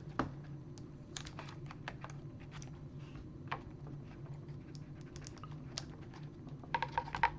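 Scattered light clicks and taps of a CD and its paper label being handled and lined up, over a steady low hum. A quick run of louder clicks comes near the end.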